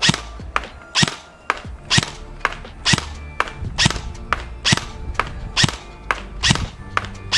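Evolution Airsoft Reaper XS EMR PDW (ETS II) electric airsoft gun firing in semi-auto, single sharp shots about once a second.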